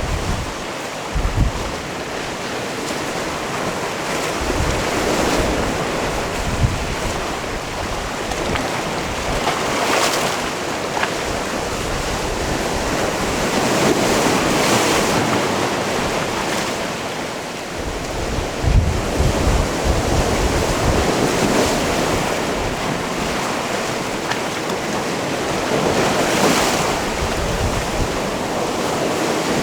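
Sea waves washing in and breaking on a rocky cove shore, the surf swelling and easing every few seconds. Wind gusts buffet the microphone with low rumbles now and then.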